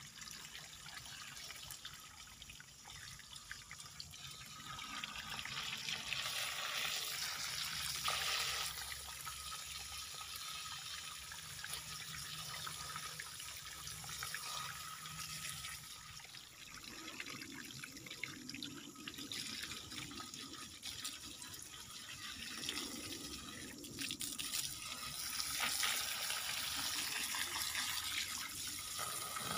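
Water from a garden hose, fanned out by a hand at its open end, spraying and splashing onto a rock and bare roots. The splashing swells and eases as the stream is moved, loudest around a quarter of the way in and again near the end.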